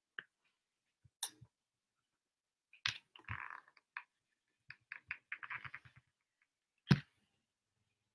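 Whiteboard eraser rubbed against a whiteboard in short scrubbing strokes, among scattered light clicks and knocks, the sharpest knock near the end.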